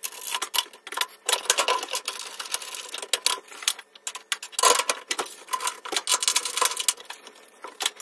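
Plastic handling noise: rapid, irregular clicks and crinkles from a small clear plastic parts bag and the washer's plastic console back panel, with a louder burst about four and a half seconds in.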